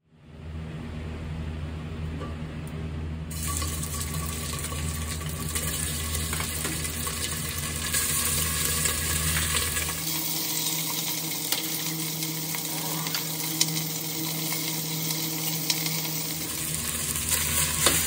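Cubes of Hida wagyu beef cheek sizzling as they sear in a stainless pot over a gas burner. The sizzle fades in and grows fuller about three seconds in, over a steady low hum.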